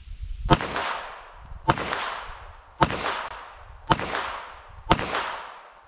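Taurus 92 9mm semi-automatic pistol fired five times at a steady pace of about one shot a second, each sharp crack trailing off in a short echo.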